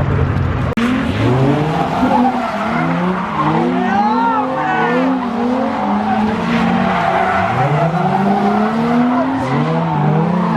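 A car engine revving up and down again and again while its tyres squeal and spin, as in a burnout.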